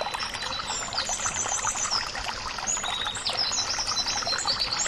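Water pouring and splashing, with small birds chirping in quick repeated runs several times over it.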